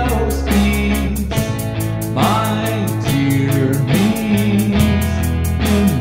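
A rock song: a man singing over electric guitar, bass and drums that keep a steady beat.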